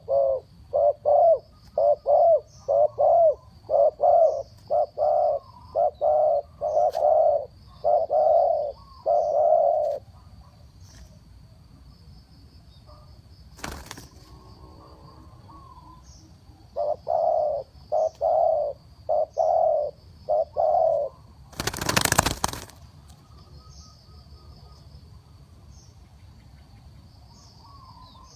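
Spotted dove cooing in a long run of repeated low coos over the first ten seconds, then another run about seventeen seconds in. A brief loud rush of noise comes about twenty-two seconds in, with a faint high steady whine underneath throughout.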